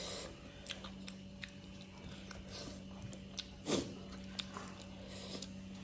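Close-miked chewing of a mouthful of rice and nettle curry, with repeated short wet mouth clicks and smacks. One louder smack comes a little past halfway.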